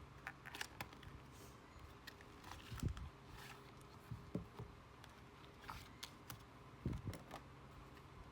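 Faint handling of unboxed packaging: scattered small clicks and light rustles, with a soft thump about three seconds in and another about seven seconds in.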